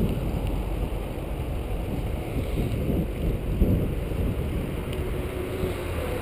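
Wind buffeting the microphone of a handlebar-mounted camera on a moving bicycle, over a steady low rumble of the tyres rolling on pavement.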